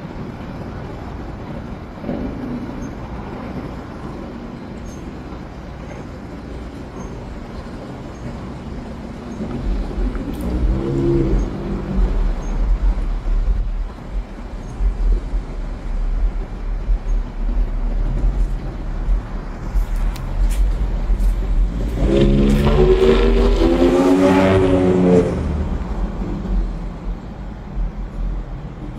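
Passing motor traffic: a vehicle's engine rising in pitch as it accelerates, once briefly and again louder near the end, over a steady low rumble of wind on the microphone.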